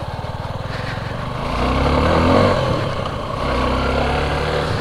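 2022 Suzuki V-Strom 250 SX's single-cylinder engine accelerating while being ridden, revs climbing to a peak about two seconds in, easing off briefly, then pulling on steadily.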